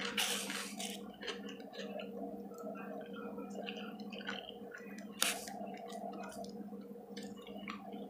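A person chewing food, with small clicks and scrapes of a plastic fork in a foam takeout container and two sharper scrapes, one at the start and one about five seconds in, over a steady low hum.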